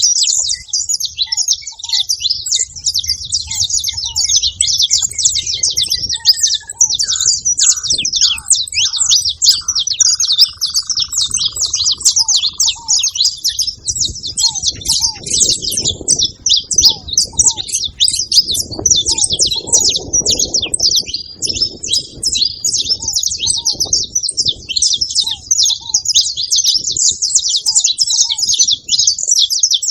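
A flock of saffron finches chattering, many high chirps overlapping without a break.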